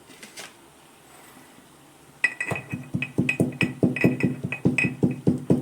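Mortar and pestle pounding whole spices coarsely: a quick, steady run of ringing strikes, several a second, starting about two seconds in.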